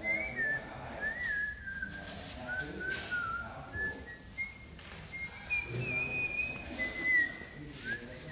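A person whistling a slow tune: a string of held notes with short slides up and down between them.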